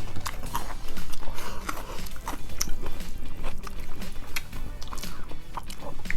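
A person chewing and biting into food, a run of irregular wet smacks and clicks.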